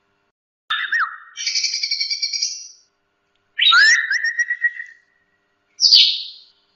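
Cucak rante songbird singing in separate phrases. A whistled gliding note runs into a fast chattering trill, then a rising whistle is followed by a string of quick notes. A short harsh call comes near the end.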